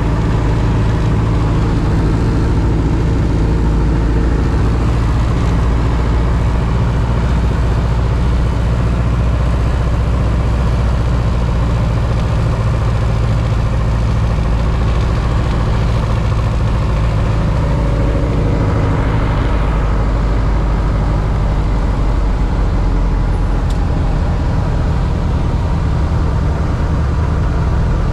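Piston engine and propeller of a two-seat tandem light aircraft droning steadily in cruising flight, heard from inside the cabin.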